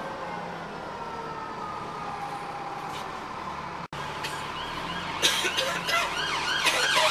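Inside a Dennis Trident double-decker with a Voith three-speed gearbox, the drivetrain whine falls steadily in pitch as the bus slows. About four seconds in, an emergency vehicle siren starts up outside, its pitch warbling up and down a couple of times a second and growing louder near the end, with a few sharp clicks among it.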